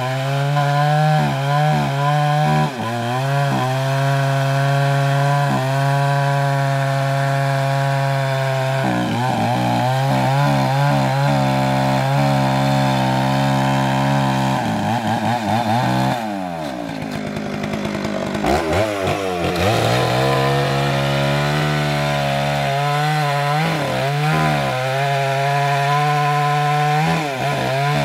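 Small two-stroke chainsaw running at high throttle, cutting through a felled tree trunk, its pitch wavering as the chain bites. A little past halfway the engine drops toward idle for a few seconds, then revs back up and keeps cutting.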